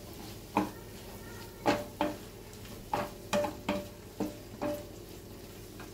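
Wooden spatula stirring potato and cauliflower in a kadai, scraping and knocking against the pan about eight times at an irregular pace.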